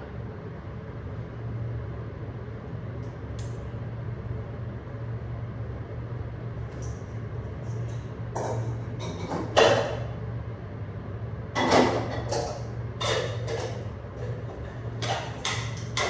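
Kitchen clatter: cookware and cupboards being handled at a kitchen counter, with a run of sharp knocks and clanks in the second half, the loudest about ten and twelve seconds in, over a steady low hum.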